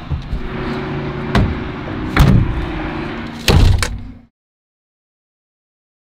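Knocks and slams of a pickup truck's bed cap and tailgate being shut, the loudest slam about three and a half seconds in, over a steady low hum. The sound then cuts off to dead silence a little after four seconds in.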